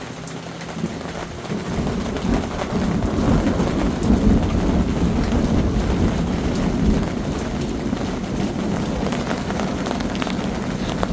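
Heavy rain falling, with a long low rumble of thunder that rolls in a second or two in, is loudest in the middle, then slowly eases off.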